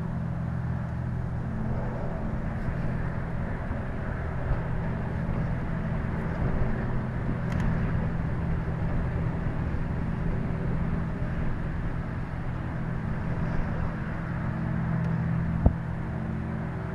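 Steady low-pitched hum of several held tones over a rushing noise, which the recordist attributes to machinery at an aluminium smelter. A single sharp click comes near the end.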